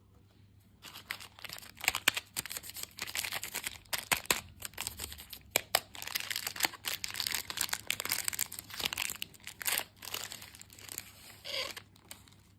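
Candy packaging being crinkled and torn open: a dense crackle of plastic wrapper with sharp snaps, starting about a second in and stopping shortly before the end.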